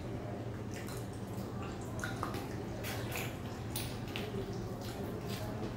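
Close-miked wet eating sounds: chewing and lip-smacking, with irregular squelchy clicks, from people eating soft puris soaked in curry with their hands.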